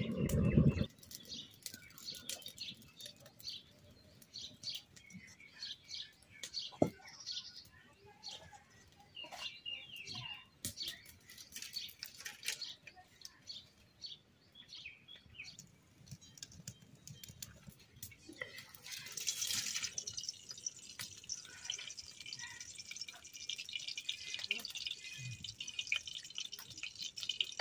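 Wood fire crackling and popping in a clay mud stove, with thin dry sticks being snapped and pushed in, and birds chirping in the background. It opens with a short low rumble, and a steady hiss sets in about two-thirds of the way through.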